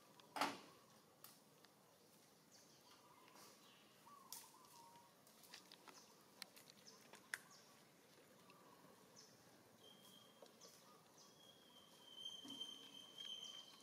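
Near silence: faint outdoor ambience with scattered small clicks, one sharp knock about half a second in, and a faint high steady whistle in the last few seconds.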